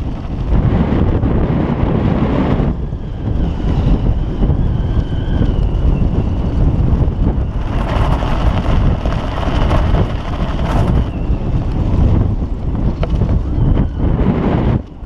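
Strong wind buffeting the microphone: a loud, heavy rumble that swells and eases in gusts, with a faint thin whistle over it a few seconds in.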